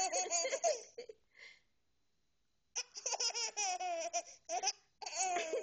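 A young child laughing in quick high-pitched bursts, while they have the hiccups. The laughter stops for about a second and a half in the middle, then starts again.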